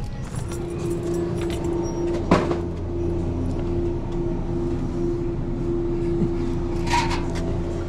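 A steady low mechanical hum with a constant droning tone. A sharp knock comes about two seconds in and a brief clatter near the end.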